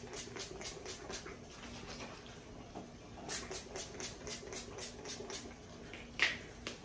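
Facial mist spray bottle pumped in quick succession, short hissing sprays at about four a second, a pause, then another run and one stronger spray near the end.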